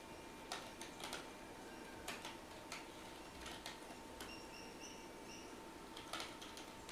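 Computer keyboard keys clicking faintly in short clusters of two or three keystrokes, with a long pause in the middle, over a faint steady electrical hum.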